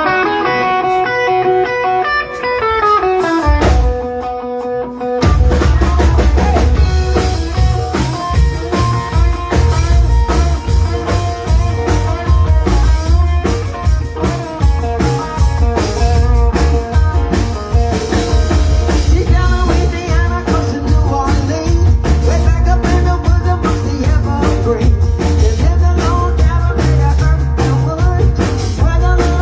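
A band playing: a descending run of notes opens, then the full band with drums and bass comes in about five seconds in and plays on steadily.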